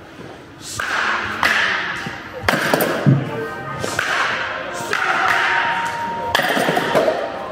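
Wooden baseball bat hitting balls off a batting tee: several sharp knocks a second or two apart, over background music.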